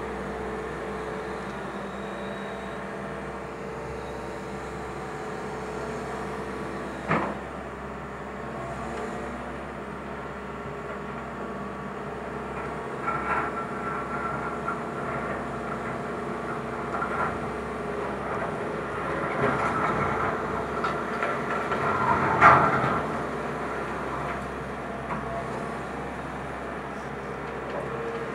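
Excavator engine running steadily while its bucket and hydraulic thumb clank and scrape through metal sheeting and demolition debris on a concrete floor. A single sharp bang comes about a quarter of the way in, and the scraping and clatter grow in the second half, peaking near the end.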